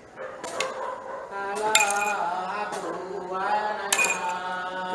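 Iban timang ritual chant sung by a male bard in a slow, wavering voice, with the bells on his ceremonial staff clinking as it is struck on the floor, about once a second, four times.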